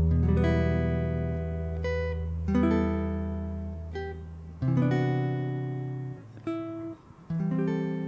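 Background music of plucked acoustic guitar: chords and single notes struck every second or two and left to ring and fade.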